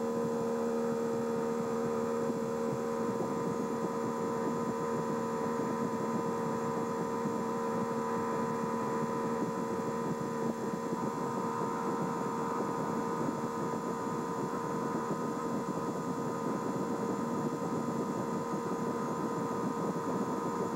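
Boat motor running at a steady speed: a constant, even drone that does not change in pitch.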